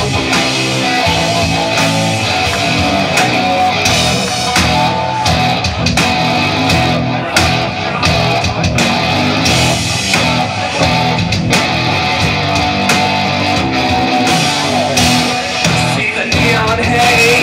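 Live rock band playing an instrumental section: loud distorted electric guitars over bass and drums with steady cymbal and drum hits.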